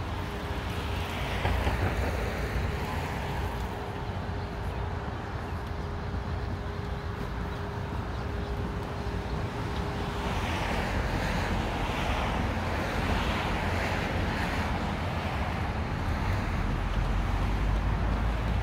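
Street traffic passing, with wind buffeting the microphone. A steady hum stops about ten seconds in, after which several vehicles swish past one after another.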